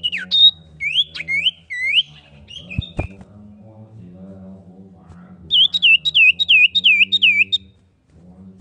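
Common iora calling in loud swooping whistles: a few single notes at the start, then, about five and a half seconds in, a fast run of about eight repeated swooping notes at roughly four a second.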